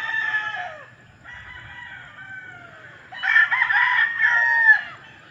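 Several gamecock roosters crowing, their calls overlapping. The loudest crow starts about three seconds in and lasts nearly two seconds.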